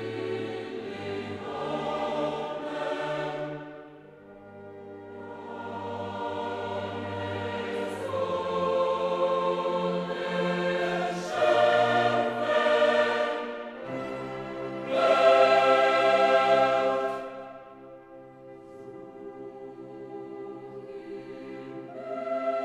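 Background music: a choir singing sustained chords with orchestral accompaniment, swelling and fading in long phrases.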